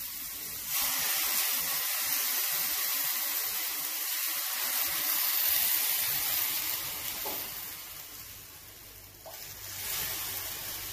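Water poured into a hot steel kadai of sautéed grated bottle gourd, sizzling and hissing as it hits the hot pan. The hiss starts suddenly under a second in, dies away over the following seconds, and swells briefly again near the end.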